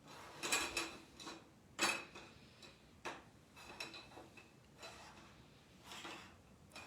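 A series of irregular clicks and rattles from objects being handled on a table, loudest about half a second and two seconds in.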